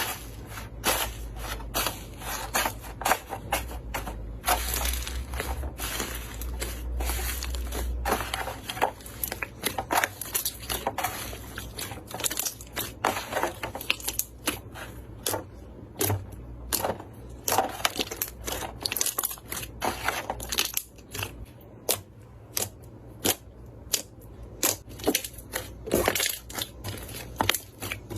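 Slime being squeezed and pressed by hand, giving irregular sharp crackles and pops, several a second, denser in the first part.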